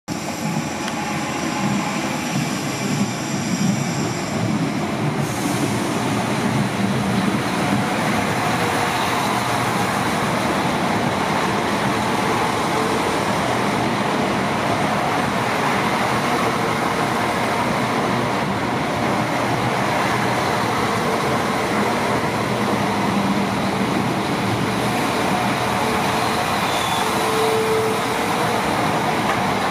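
Iarnród Éireann 22000 Class InterCity diesel railcar running slowly into a station: the steady drone of its underfloor diesel engines and the rumble of wheels on the rails, building over the first few seconds as it nears. A high brake squeal comes in near the end as it slows to stop.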